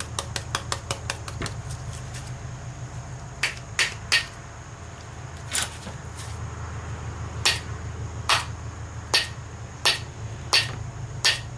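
Hammer strikes driving a roll pin out of an F4A42 automatic transaxle valve body. A quick run of light taps comes first, then about ten harder, separate blows with a short metallic ring, roughly half a second to a second apart.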